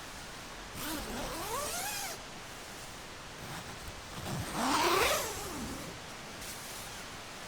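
Two motor vehicles go by one after the other, each engine note rising and then falling, over a steady background hiss.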